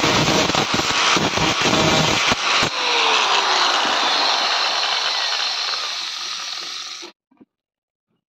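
Angle grinder with a thin abrasive cut-off disc cutting a metal bar held in a vise. About three seconds in, it drops off the cut and winds down with a falling whine, fading until the sound stops abruptly about seven seconds in.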